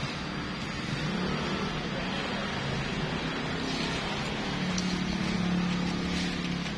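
Steady background noise with a low engine hum that swells about five seconds in and then eases, as of a motor vehicle passing.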